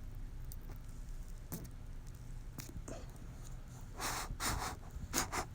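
A person puffing on a cigar to get it lit: a few short, breathy puffs and exhales in the second half, over a low steady hum.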